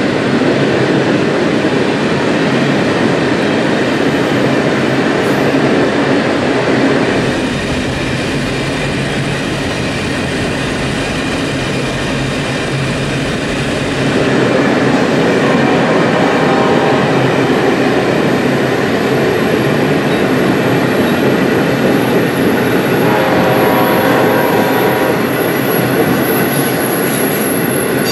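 A long train of ore hopper cars rolling past close by: the steady rumble and clatter of steel wheels over the rails. A thin, high wheel squeal comes in during the second half.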